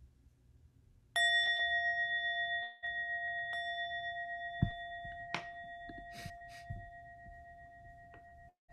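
A meditation bell struck once about a second in, then ringing on with a slow fade, marking the start of a timed writing period. A few faint knocks are heard under the ringing, and the sound cuts out briefly twice.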